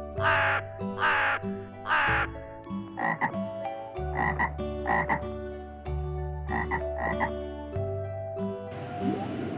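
Repeated animal calls: three loud, harsh calls in the first two seconds, then shorter calls in four quick groups, over steady background music.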